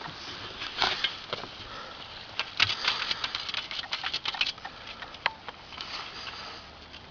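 A quick run of light clicks and taps, lasting about two seconds from near the middle, over a steady hiss.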